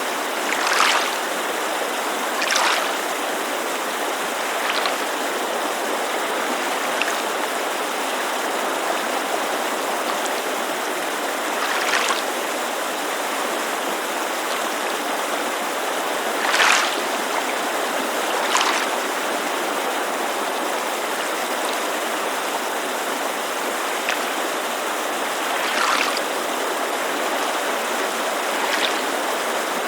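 Steady rushing of a mountain creek with small waves lapping at a lakeshore, about eight soft splashes at irregular intervals of a few seconds, the loudest about a second in and around the middle.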